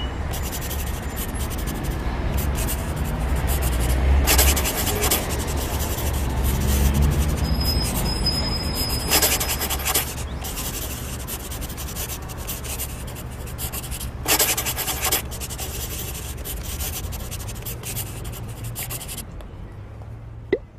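Marker pen drawing on paper: a continuous dense scratching and rubbing, with louder stretches about four, nine and fourteen seconds in, and a single click near the end.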